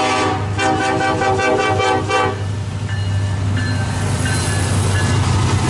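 Diesel locomotive air horn sounding a chord, broken into a quick run of short toots that stop a little over two seconds in. The train's steady low rumble carries on after the horn.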